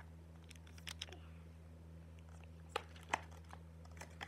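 Plastic wrap and cardboard packaging crinkling and clicking as an item is lifted out of its box: a few scattered sharp rustles, the sharpest about three seconds in, over a steady low hum.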